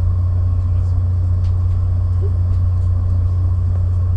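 Steady low hum inside a stationary passenger train car waiting to depart, even and unchanging throughout.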